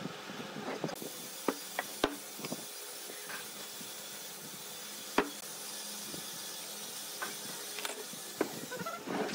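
Wood lathe running, a steady hiss with a faint hum, broken by a few sharp clicks and knocks about a second apart or more.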